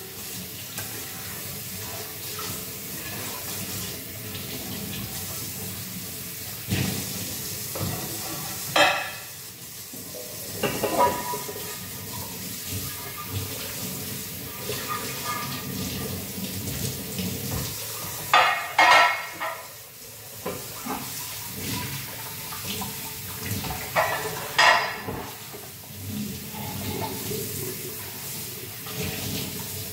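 Kitchen tap running into the sink while dishes are washed by hand, with dishes and pots clattering against each other several times, loudest a third of the way in and again past the middle.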